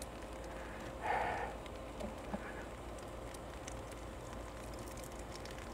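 Screwdriver prying at an old hurricane hinge on a camper hatch: a brief soft scrape about a second in, then a couple of faint clicks, over low background hum.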